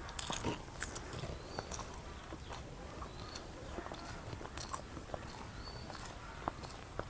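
A person eating close to the microphone: chewing with irregular wet mouth smacks and clicks, a few of them crisp.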